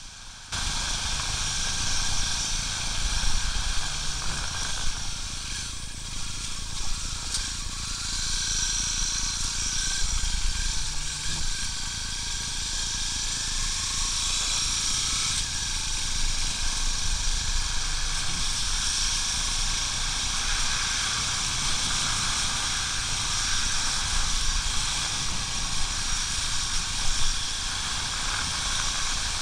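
A motorcycle riding along a wet dirt road, heard from on the bike: wind rushing and buffeting over the microphone, a hiss over a low, uneven rumble from the engine and tyres.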